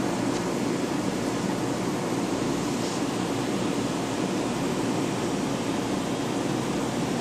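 Steady hum and hiss of a running reef aquarium's pumps and circulating water, even throughout with no distinct events.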